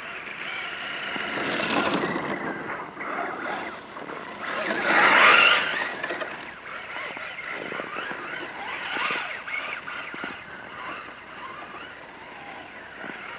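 Electric motor and drivetrain of a 1/10 scale Ford F-150 Raptor RC truck with a VXL brushless setup, whining as the truck drives on snow. The pitch rises and falls with the throttle, and it is loudest about five seconds in as the truck passes close.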